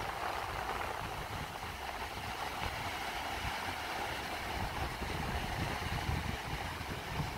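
Steady wash of ocean surf breaking on the shore, with a low rumble of wind on the microphone.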